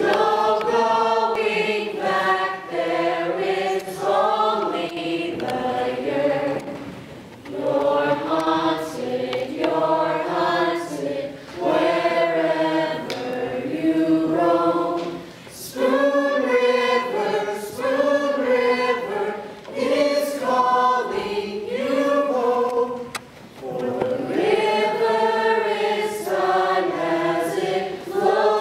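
Stage cast singing together as a choir, in phrases of a few seconds with short pauses between.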